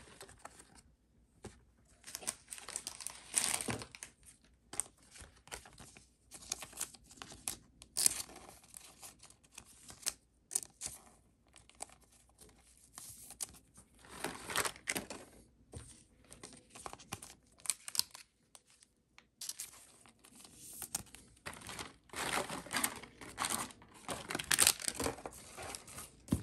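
Trading cards and a foil booster-pack wrapper being handled: crinkling and rustling in irregular bursts, with a few sharp clicks.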